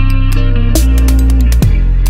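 Background music: plucked guitar over deep, held bass notes that change twice, with sharp percussive hits.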